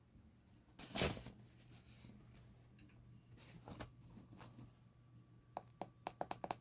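Packaging and parts being handled: a brief rustle or scrape about a second in, softer rustling, then a quick run of sharp clicks and taps near the end.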